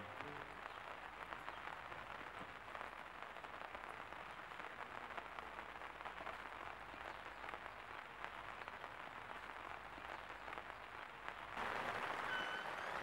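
Faint, steady outdoor background noise, a crackly hiss full of tiny clicks. It steps up louder about a second and a half before the end, where a brief high chirp sounds.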